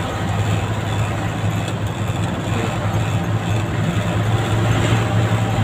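Mitsubishi Fuso tractor head's 10DC11 V10 diesel engine running steadily in fourth gear high range, heard from inside the cab as a constant low hum.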